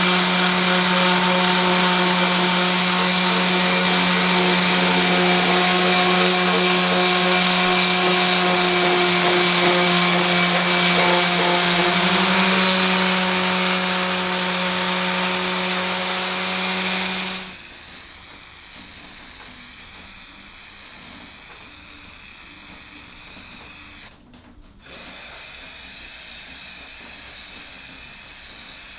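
Electric power tool sanding rusty iron parts: its motor runs at a steady pitch with a loud grinding hiss, then cuts off suddenly about 17 seconds in. A much quieter steady hiss follows.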